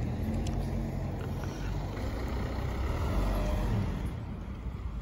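A motor vehicle driving past with a low engine hum, growing louder to a peak about three seconds in, then fading.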